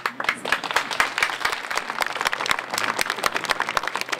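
Audience breaking into applause: many hands clapping in a dense, steady patter.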